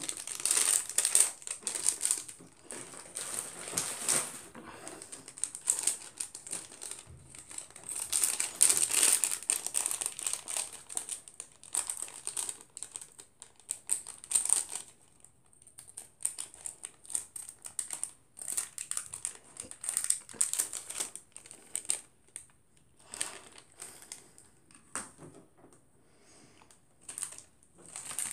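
Close-up crunching and chewing of dry Chex Choco chocolate cereal squares, in irregular crackly bursts with short pauses between. Near the end a snack wrapper crinkles as it is handled.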